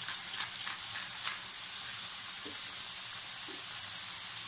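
Diced tomatoes, onion, carrot and red pepper sizzling steadily in olive oil in a frying pan, with a few light ticks in the first second or so.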